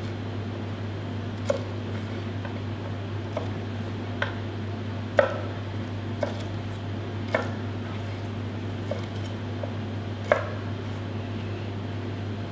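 Chef's knife cutting red bell pepper into big pieces on a plastic cutting board: scattered sharp knocks of the blade on the board, about one every second or two, over a steady low hum.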